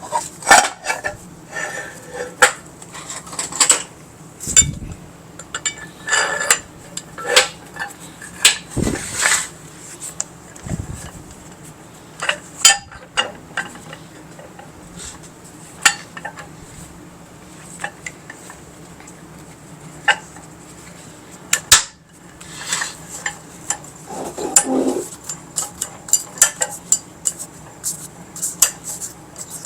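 Metal bench vise parts clinking and knocking irregularly as they are handled, slid together and fitted during reassembly.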